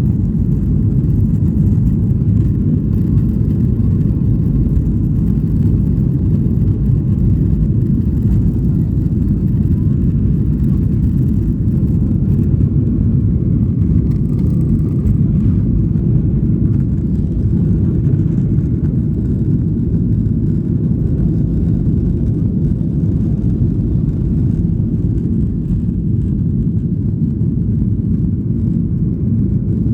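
Boeing 737-900 airliner's cabin noise during the climb shortly after takeoff: a steady, deep rumble of engine and airflow noise.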